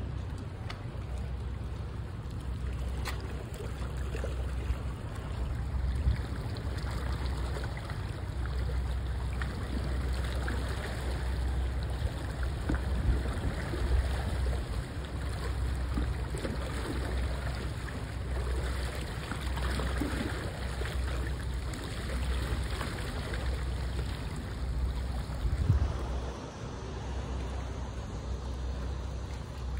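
Water lapping and trickling, with a low, uneven wind rumble on the microphone.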